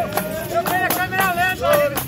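Capoeira roda music: berimbaus and a pandeiro playing under group singing, with hand claps and sharp percussive strikes keeping a steady beat several times a second.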